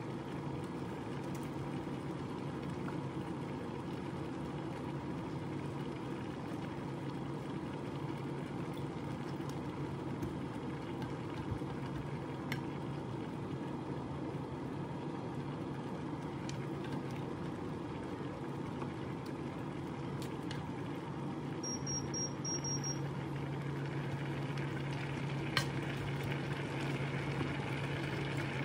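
Crabs and vegetables sizzling steadily in a frying pan as coconut milk is poured over them, over a steady low hum. A few short high beeps sound about three quarters of the way through.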